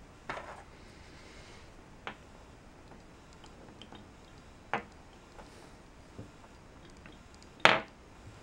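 Square-cut wooden burr puzzle pieces clacking against each other and the wooden tabletop as they are handled and placed: about five separate light knocks, the loudest near the end.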